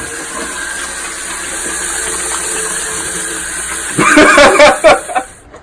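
Water running from a tap in a steady rush, with a voice breaking in loudly near the end.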